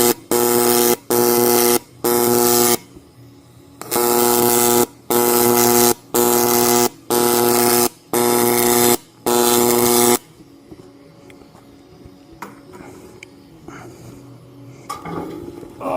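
AC TIG welding arc on aluminum buzzing in bursts just under a second long with brief breaks between them, laying the bead dime by dime. It pauses for about a second near the start, runs again until about two-thirds through, then stops, leaving only faint knocks.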